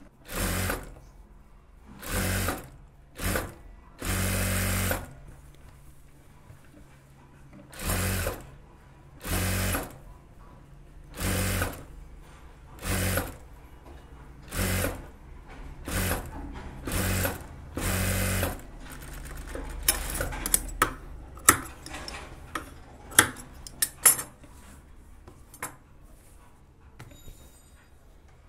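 Single-needle industrial sewing machine stitching gathered puff-sleeve fabric in about a dozen short start-stop runs, one a little longer than the rest. Near the end the machine stops and a few sharp clicks follow.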